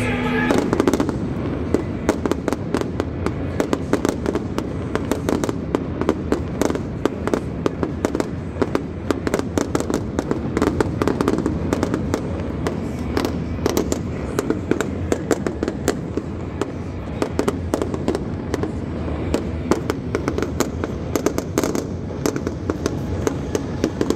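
Aerial fireworks bursting overhead: many sharp cracks and bangs in rapid, uneven succession.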